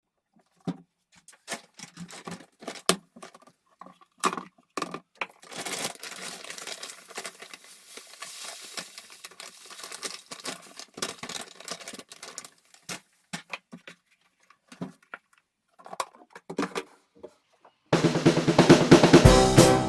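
Knocks and clicks of household objects being handled and set down during bathroom cleaning, with a few seconds of rubbing noise in the middle. Music with a beat comes in near the end.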